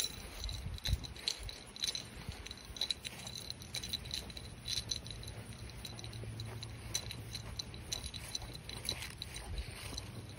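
Faint, irregular light jingling and rattling of small metal pieces as a handler walks with a dog on a long lead, over a low steady rumble of handling noise.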